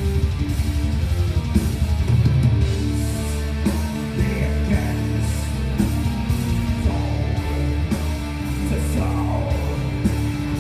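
Norwegian black metal band playing live and loud: distorted electric guitars over bass and drums, recorded from the crowd.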